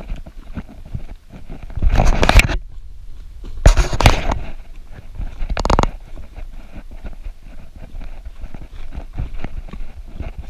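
Running footfalls on a dirt forest trail in a quick, even rhythm, heard from a camera carried by the runner. Three loud bursts of noise break in about two, four and six seconds in, each lasting well under a second.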